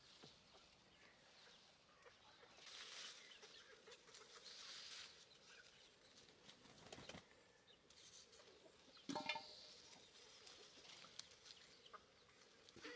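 Faint rustling of cherry-tree leaves and branches as cherries are picked by hand, with a short bird call about nine seconds in.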